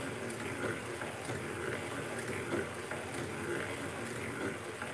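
Legare circular sock knitting machine being hand-cranked, its needles clattering steadily with a light rhythmic swell as the cylinder turns and knits rows of a sock.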